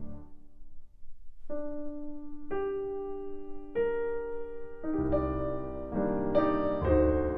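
Background piano music. After a brief pause about a second in, single notes come in one at a time, building into fuller chords from about five seconds.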